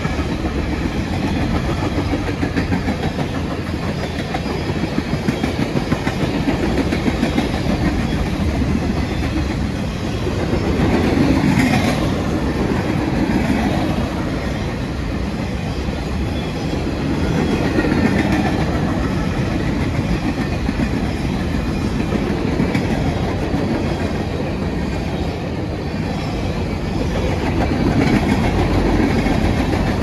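Freight cars of a CSX freight train rolling past close by, mainly boxcars and then covered hoppers: a steady loud rumble with the clickety-clack of wheels over the rail joints. It swells in loudness every several seconds as the cars go by.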